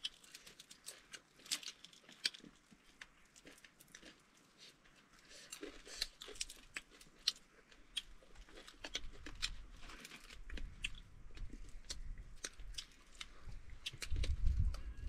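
Close-up chewing and crunching of food, with many short, sharp crunches. A low rumble comes in partway through and is loudest near the end.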